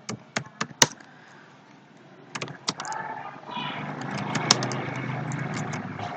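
Computer keyboard keys clicking in short runs, then from a little past two seconds a steadier, louder rumbling noise with a few clicks still mixed in.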